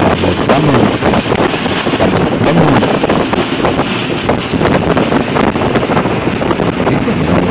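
Loud steady rush of wind on the microphone, with road and engine noise from inside a moving bus at highway speed. A few brief high squeaks sound between one and three seconds in.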